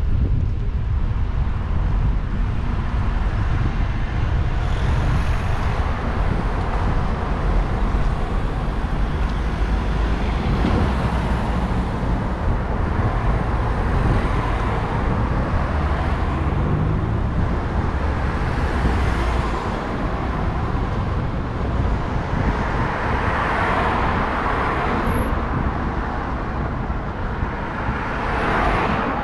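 City street traffic: a steady low rumble with cars swelling past now and then, the loudest passes about 24 seconds in and near the end.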